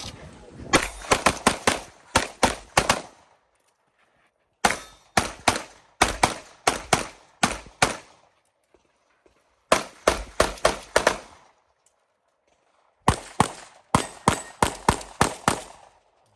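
Rapid pistol fire from a .38 Super open-division race gun: four quick strings of shots, separated by pauses of about a second and a half.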